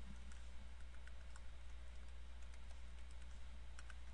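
Computer keyboard being typed on: a scattering of light, irregular key clicks over a steady low hum.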